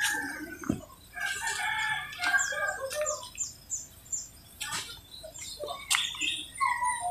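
Roosters crowing and chickens clucking, with a quick run of about five high, falling chirps a few seconds in and a sharp click about six seconds in.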